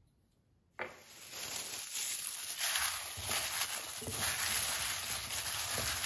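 Clear plastic food-prep glove rustling and small potatoes tumbling and knocking in a glass bowl as they are tossed by hand with spices. It starts suddenly about a second in and then runs steadily.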